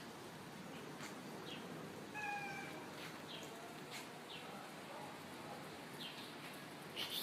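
A cat meowing once, briefly, about two seconds in, over faint background noise. Short high chirps recur every second or so.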